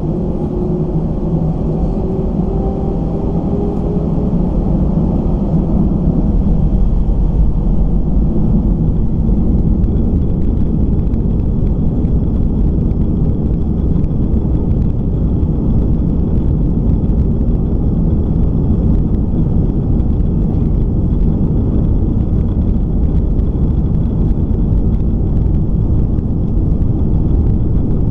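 Airbus A319's jet engines spooling up to takeoff thrust, heard from inside the cabin: a rising whine over a growing rumble for the first few seconds, then a steady loud rumble as the airliner accelerates down the runway.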